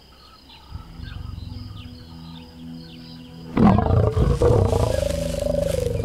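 Male African lion roaring: one long roar that starts suddenly a little past halfway through and holds to the end, over background music with low held notes.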